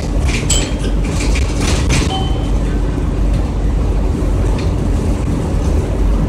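Inside a moving 2002 Orion VII CNG 40-foot transit bus: the steady low rumble of its natural-gas engine and the road, with rattles and clicks from the body and fittings, busiest in the first two seconds. A brief high beep sounds about two seconds in.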